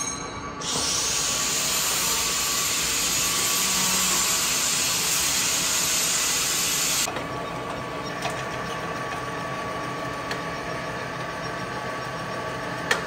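Vertical milling machine running as an end mill cuts into an aluminium plate: a loud steady hiss for about the first six seconds, then a quieter steady machine noise with a faint steady whine, and a sharp click near the end.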